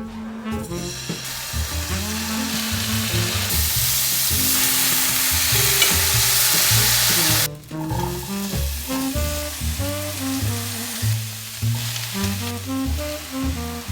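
Food sizzling in a hot pan over background music. The sizzle builds about a second in, grows loudest, and cuts off suddenly just past halfway, leaving only the music.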